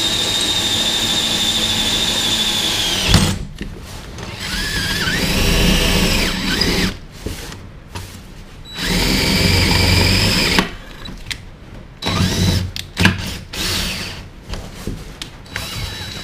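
Cordless drill boring down through the trailer floor through an anchor point's bolt hole. It runs steadily for about three seconds, stops, then goes in several shorter start-stop runs whose pitch sags and rises as the bit bites, with a few sharp knocks between runs.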